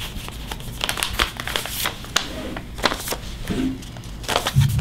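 Paper envelopes rustling and crinkling in irregular short bursts as hands handle and sort through them.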